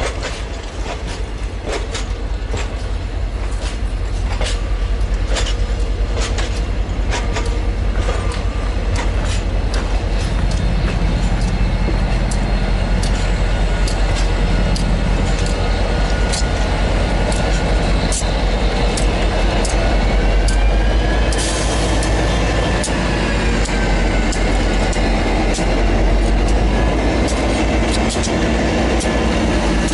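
A train rolling slowly along the track with a steady low rumble, its wheels clicking sharply over rail joints. A wavering wheel squeal rises and falls about two-thirds of the way through.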